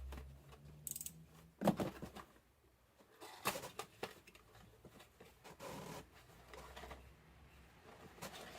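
Close handling noises: a series of sharp knocks and clicks with rustling between them, the loudest knock about a second and a half in.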